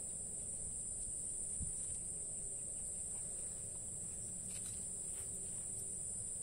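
A steady, high-pitched chorus of insects calling.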